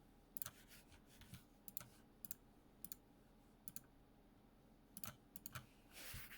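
Keys on a Skyloong SK61 mechanical keyboard with lubed Gateron optical Green clicky switches being pressed in slow, irregular typing, each keystroke a sharp click. About six seconds in there is a longer scratchy rustle.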